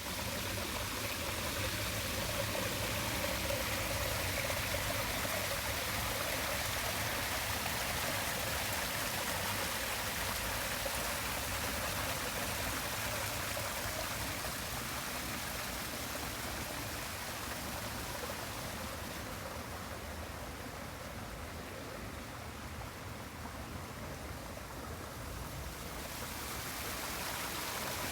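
Small waterfall splashing and trickling in a steady, even rush of falling water. Its hiss dulls for several seconds past the middle, then comes back.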